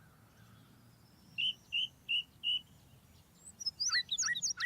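Songbird singing: four short, evenly spaced clear notes, then after a pause a rapid run of sweeping, jumbled notes that starts near the end.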